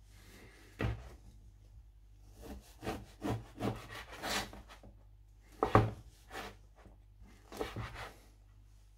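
Chef's knife sawing through stale, crustless bread and knocking on the cutting board: a knock about a second in, a quick run of short strokes in the middle, and a few more knocks near the end.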